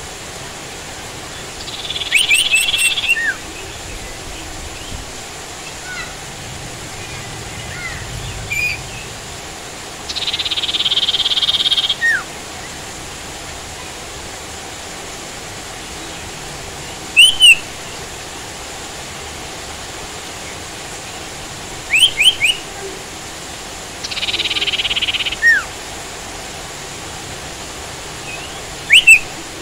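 Sirtu calling over a steady rain hiss. It gives three harsh buzzy rattles lasting a second or two each, with short sharp paired chirps between them.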